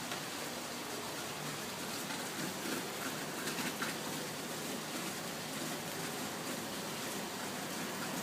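Steady rain falling and pattering on surfaces, with a few sharper drop ticks a little past the middle.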